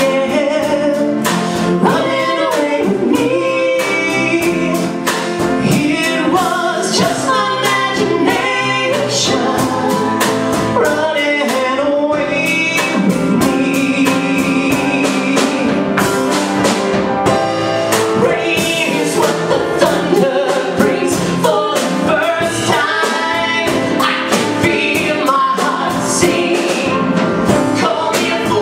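A man and a woman singing a pop duet with live instrumental backing, including a regular beat.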